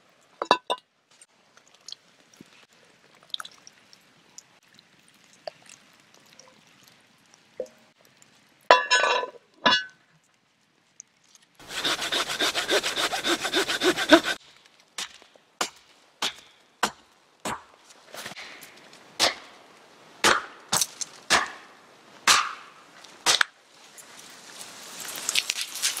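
Hand saw cutting through a small tree trunk for about three seconds midway, followed by a run of sharp wood cracks and snaps. Before that there are only faint crackles and two louder knocks.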